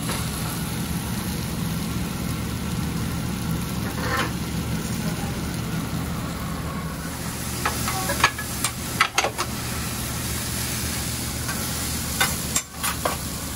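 Egg-and-vegetable omelet frying in butter on a flat-top griddle: a steady sizzle over a low hum. From about eight seconds in, a metal spatula clicks and scrapes on the griddle steel several times as it works the home fries.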